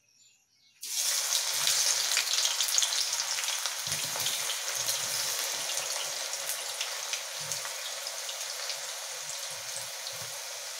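Sliced bitter gourd rounds hitting hot oil in a kadai: a loud, crackling sizzle starts suddenly about a second in and eases slightly as the gourd fries.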